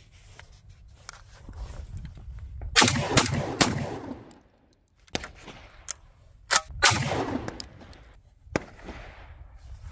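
Citadel Boss Hog semi-automatic 12-gauge shotgun firing high-brass shells: four loud shots in two quick pairs, each with a ringing echo, plus a few lighter clicks between them.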